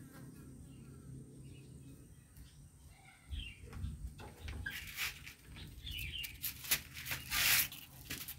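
Faint bird chirps over a low steady hum, then from about halfway a run of short clicks and rustles, the loudest a rustle near the end.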